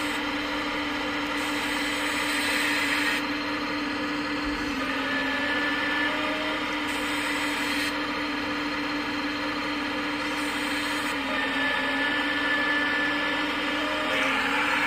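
A 1/14-scale RC hydraulic excavator's hydraulic pump running with a steady whine while the boom and bucket dig. The pitch sags briefly a few times as the arm works under load.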